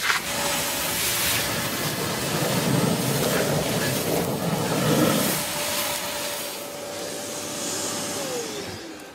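Kärcher wet-and-dry vacuum running with a steady motor whine, sucking up wet sludge through its hose with a rough, gurgling rush for a few seconds midway: a satisfying noise. Near the end the whine falls in pitch as the motor runs down.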